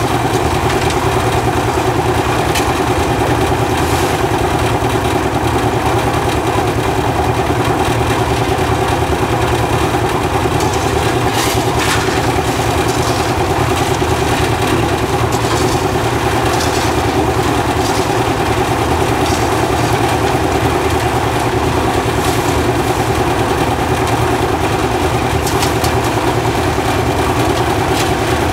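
Engine of a portable concrete drum mixer running steadily while the drum turns, with a few brief rattles as material is tipped into the drum.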